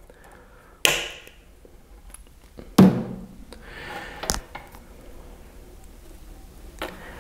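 Wire cutters snipping through brass wire with a crisp click about a second in, followed by a few knocks and clicks as the cut brass pieces and the cutters are handled on a tabletop.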